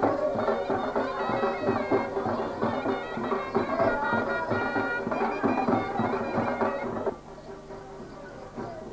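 Outdoor processional band music: a melody of held notes on wind instruments over steady drum beats. It drops much quieter about seven seconds in.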